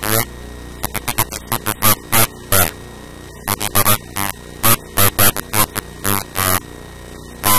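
A man's voice talking in short, clipped, distorted bursts over a steady low electrical hum.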